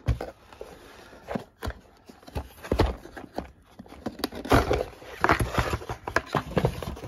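A series of irregular knocks and clacks, several a second at times, with no steady sound beneath them.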